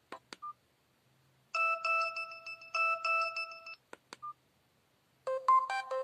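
Blaupunkt BS 02 mobile phone previewing its SMS alert tones while its menu is scrolled. First come two key clicks and a short beep, then a bright electronic alert melody played twice over. After two more clicks and a beep, a different alert melody starts near the end.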